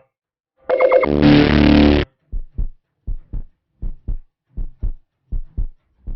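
Heartbeat sound effect: pairs of low thuds, lub-dub, repeating about every three quarters of a second (around 80 beats a minute), six beats in all. It follows a brief, different sound effect of a little over a second, about a second in.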